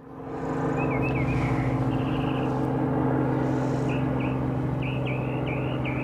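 Steady low hum of a vehicle engine running, the loudest sound, with a northern mockingbird calling over it in short chirps, a brief trill and a run of repeated notes.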